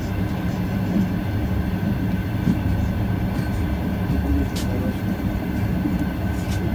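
ET2 electric train running at speed, heard from inside a passenger car: a steady low rumble with a faint constant high tone above it. A single sharp click comes about halfway through.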